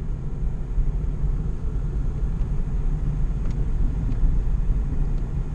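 Car being driven: a steady low rumble of road and engine noise heard from inside the cabin.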